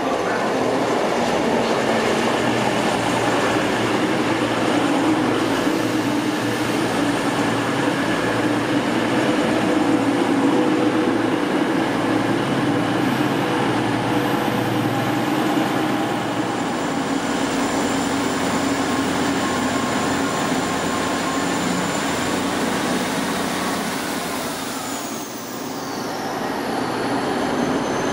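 Class 221 Voyager diesel-electric unit passing, its underfloor diesel engines running over the noise of the wheels on the rails. It is loud at first and turns quieter after about 16 seconds as the train moves away. Near the end another diesel unit, a South Western Railway Class 159, takes over.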